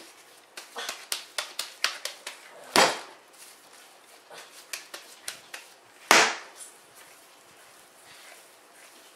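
Gloved hands slapping and pressing a lump of seasoned ground beef for donair meat against a countertop: a run of quick wet slaps, then two loud smacks about three seconds apart with softer pats between.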